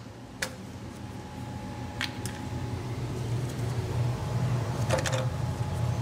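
Plastic thermostat safety cover on an electric water heater being worked loose and pulled off by hand: three sharp clicks and snaps over a low steady hum.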